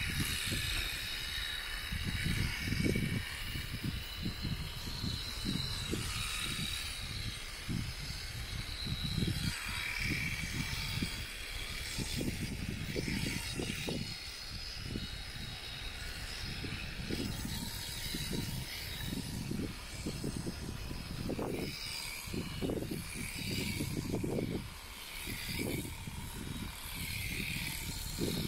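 Electric shearing handpiece running steadily as it clips through an alpaca's fleece, with irregular gusts of low rumbling from wind on the microphone.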